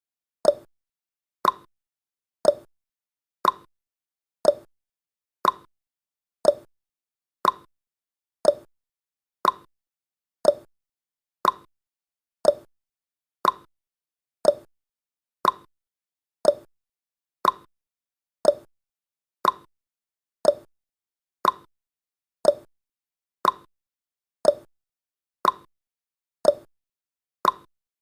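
Countdown timer's sound effect: a short tick once every second, each fading quickly, steady and evenly paced.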